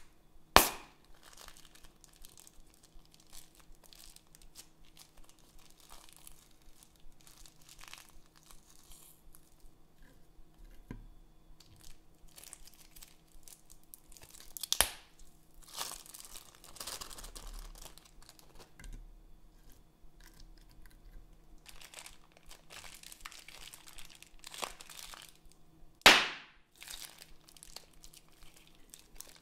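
Plastic bags filled with slime crinkling and squelching as fingers squeeze and knead them. Three sharp cracks of plastic tearing stand out: about half a second in, around the middle, and a few seconds before the end.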